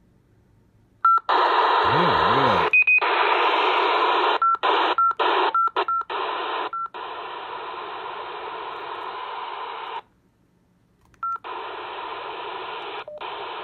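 Onn ONA19WT002 walkie-talkie's speaker hissing radio static while tuned to weather channels that carry no station. Short key beeps cut in as the channels are stepped through, several in quick succession in the first half. The static drops out for about a second near the end and returns after another beep.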